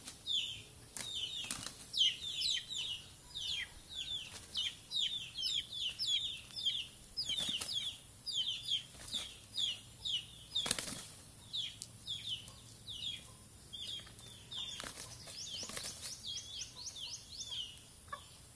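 Two chickens fighting, with wing flapping and scuffling, over a continuous run of short, high, falling chirps a few times a second.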